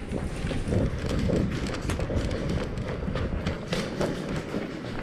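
Quick running footsteps on a concrete floor, heard close up with many short knocks.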